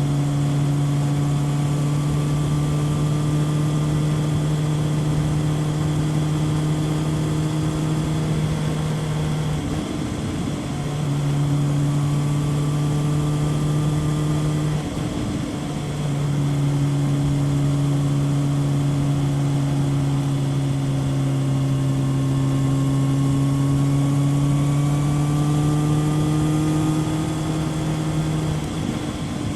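Kawasaki ZRX 1100 inline-four through a Yoshimura exhaust, cruising at a steady engine speed. Three times the note breaks off briefly as the throttle closes and then picks up again, with wind noise underneath.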